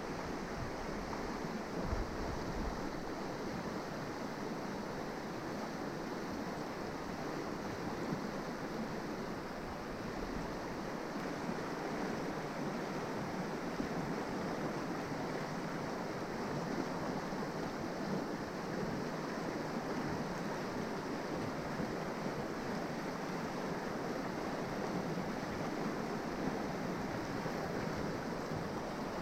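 River water flowing steadily over its bed, a continuous even rush with no breaks.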